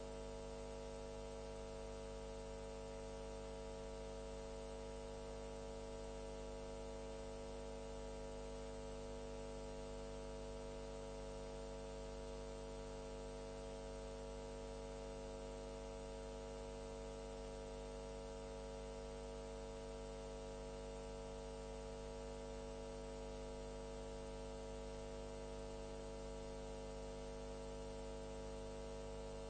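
Steady electrical hum with many overtones and a faint hiss, unchanging in pitch and level throughout.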